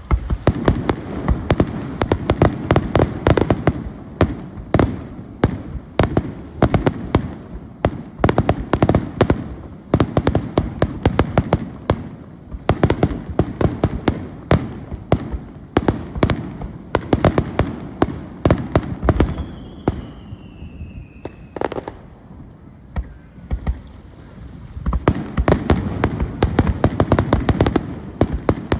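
Aerial fireworks going off in a rapid, dense barrage of bangs and crackles. The barrage thins out a little after twenty seconds in, with a short falling whistle, then builds up again near the end.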